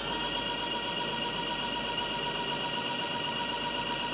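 CNC machine running with a steady high-pitched whine of several tones at once over a hiss of machine noise, as its boring tool works inside a bore.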